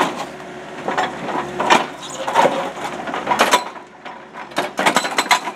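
Pool-wall concrete cracking and breaking under an excavator-mounted Rockblaster hydraulic hammer: a string of sharp, irregular cracks and knocks as slabs split and chunks fall, over a low machine hum.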